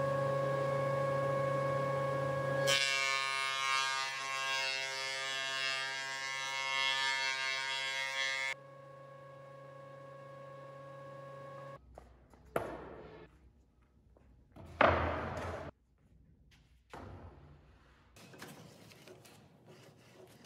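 Industrial thickness planer running with a steady hum, then louder and harsher for about six seconds while a board feeds through and is cut, then back to idling. Near the end the machine sound stops, and a few sharp knocks follow, the loudest about fifteen seconds in.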